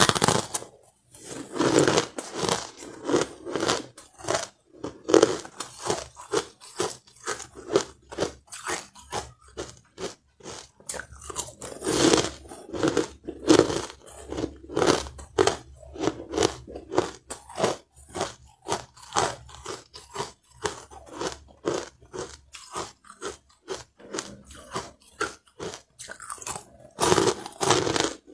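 Close-miked biting and chewing of fluffy carbonated ice: a steady run of crisp crunches, about two a second, with louder bites at the start, about halfway through and near the end.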